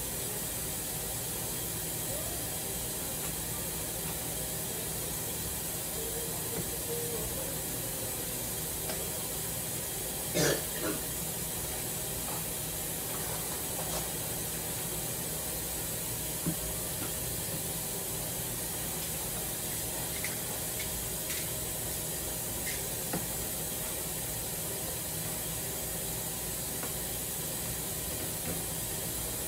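Steady hiss with a few light knocks and clicks of containers and utensils being handled, the loudest about ten seconds in.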